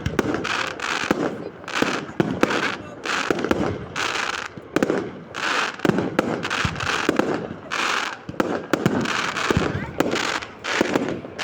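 Fireworks display: a rapid, continuous series of sharp bangs mixed with crackling bursts, a few every second.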